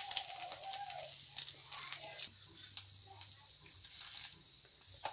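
Egg paniyaram frying in oil in the cups of a paniyaram pan: a steady sizzle with scattered crackles.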